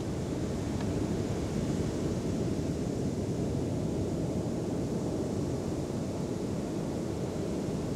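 Steady low rush of sea surf mixed with wind buffeting the microphone, with a faint tick about a second in.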